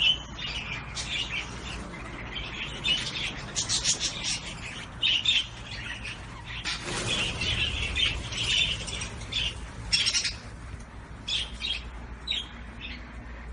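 Caged zebra finches calling: a steady stream of short, high chirps and nasal squawks, one after another.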